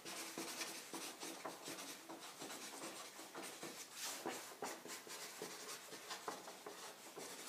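Marker writing on a paper easel pad: a faint, continuous run of short scratching strokes as words are written out.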